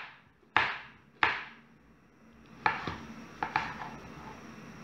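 Kitchen knife chopping tomatoes on a wooden cutting board: two sharp knocks of the blade on the board in the first second and a half, a pause, then a few lighter, quicker taps from about two and a half seconds in.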